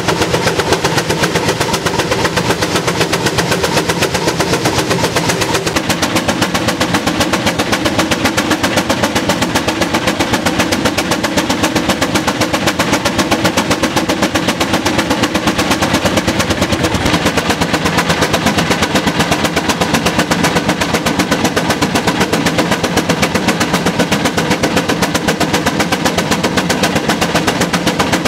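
An engine running steadily with a rapid, even exhaust beat; its tone changes about six seconds in.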